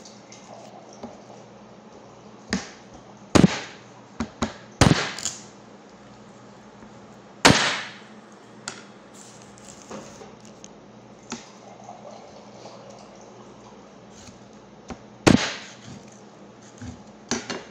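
Meat cleaver chopping raw sheep meat on a wooden cutting board: a quick run of about six sharp chops in the first third, the loudest chop a little before halfway, then a long lull with only light knocks before two more chops near the end.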